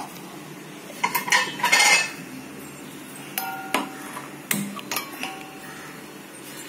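Steel cooking pot and utensils knocking and clinking, a string of separate strikes, some leaving a brief metallic ring.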